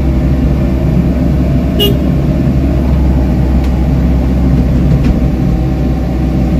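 Komatsu PC78US mini excavator's four-cylinder diesel engine running steadily while the arm and bucket dig into soil, heard from inside the cab. A single sharp click about two seconds in.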